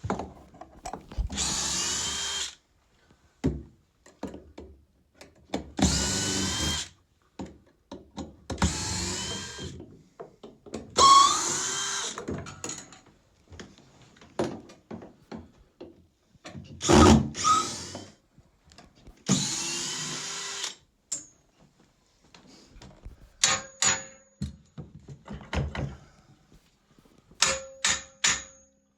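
Power drill-driver unscrewing the screws that hold a stairlift rail's floor feet to the stairs, run in about six short bursts of a second or so each. Light knocks and clicks follow near the end.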